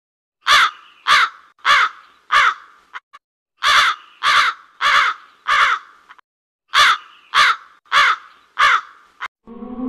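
Crow cawing in three runs of four short caws, the caws about half a second apart and the runs a second or so apart.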